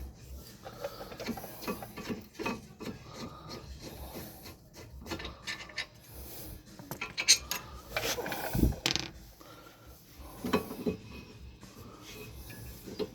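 Brake caliper bracket bolts being unscrewed and removed with hand tools: irregular metal scraping, small clicks and clinks, with one heavier metal clunk a little past the middle.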